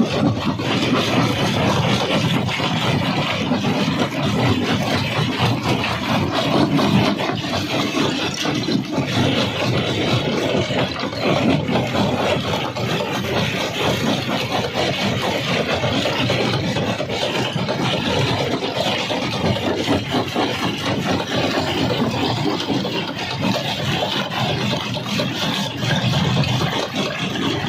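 Jaw crusher running steadily under load, with a constant dense clatter of knocks and rattles as rock is crushed in it.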